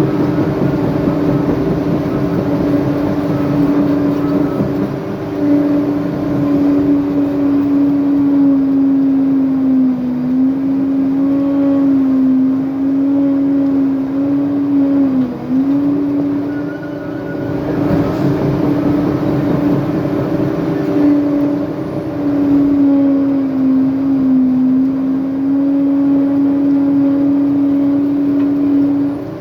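A heavy earthmoving machine's diesel engine runs at high, steady revs. Its pitch sags briefly three times as the engine takes load while pushing or digging.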